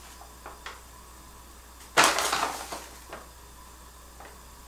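A metal spoon scooping granulated sugar from a plastic bag: one short rustle and crunch about two seconds in, with a few faint clicks of the spoon.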